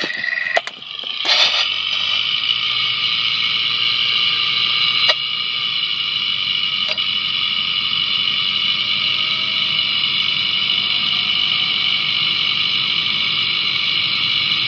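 The differential of a 2016 Mitsubishi Outlander, heard on the road through a clip-on listening sensor: a steady whirring hiss with a faint tone slowly rising in pitch in the second half. A few clicks in the first moment come from switching to this sensor. The differential noise is judged normal, nothing weird.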